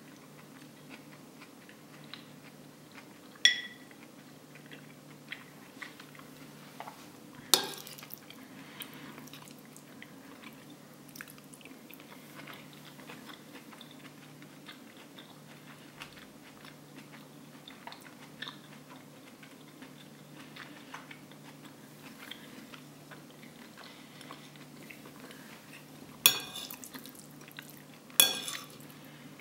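Metal spoon clinking and scraping against a plate while scooping curry and rice, with four sharp clinks: two in the first eight seconds and two near the end. Soft chewing in between.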